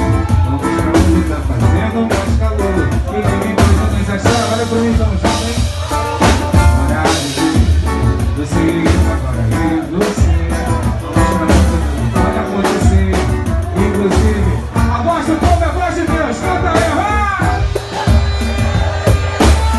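A band playing live with drum kit, bass and melodic instruments at a steady beat, with some singing.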